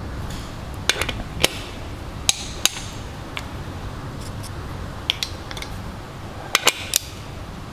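Scattered sharp metallic clicks from a click-type torque wrench and its socket on the cylinder head bolts of an Evinrude 150 outboard block, some in quick pairs, as the bolts are brought to their final torque of 27 newton metres. A steady low rumble runs underneath.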